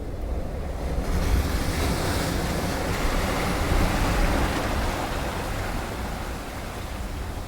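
Ocean surf: a wave surging and washing in, a wide rushing wash with a deep rumble that swells about a second in and slowly eases off.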